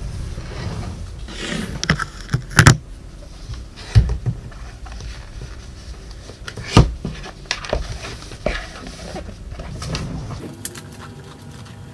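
Handling noise from a Ruroc helmet and its goggles being fitted together: scattered plastic knocks and clicks, the loudest about 2.5, 4 and 7 seconds in, over low rustling.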